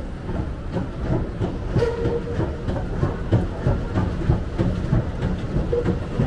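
Commuter train rumbling and clattering on the rails, growing louder, with a brief squeal about two seconds in and again near the end.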